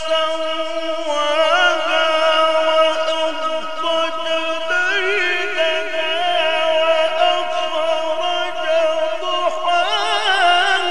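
Male Quran reciter chanting in the Egyptian mujawwad style: one voice holds a long steady note, then slides up about a second in into wavy, melismatic ornaments, with further ornamented phrases about halfway through and near the end.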